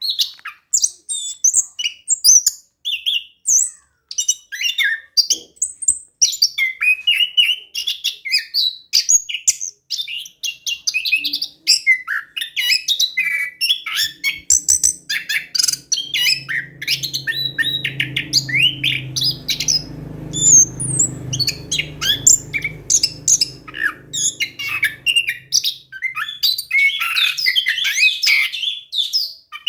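Orange-headed thrush (anis kembang) singing a fast, continuous song of varied chirps, trills and whistles with hardly a break. A low hum comes in about fourteen seconds in and fades out around twenty-five seconds.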